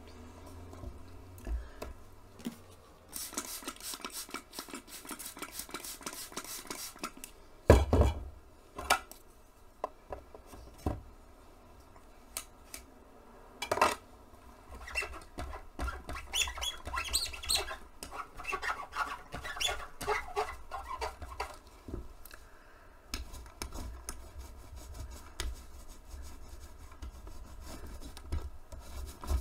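Tabletop handling sounds from stencil printing: paint jars and tools clinking and scraping, with one sharp knock about 8 seconds in. A sponge roller rubs over the stencil near the end.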